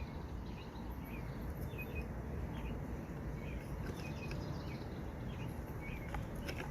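Faint outdoor background: a steady low hum with scattered short bird chirps, and a few light ticks near the end.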